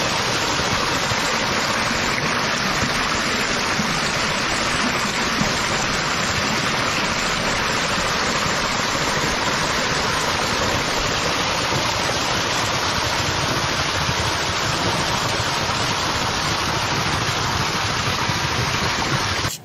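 Steady rush of water pouring out of a miniature dam's outlets and through a paddle-wheel turbine into the channel below; it stops suddenly at the very end.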